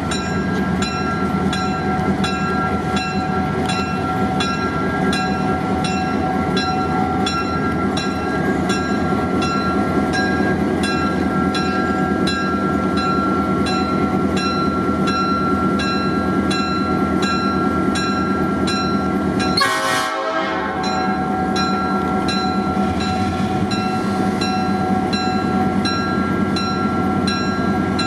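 EMD diesel locomotive working at low speed: its bell rings steadily about twice a second over the running of the diesel engine. A brief loud burst breaks in about twenty seconds in.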